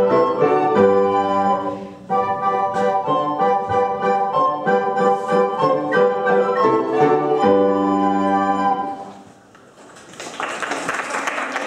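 Recorder ensemble playing a tune in several parts with piano accompaniment, the piece ending about nine seconds in; applause follows from about ten seconds.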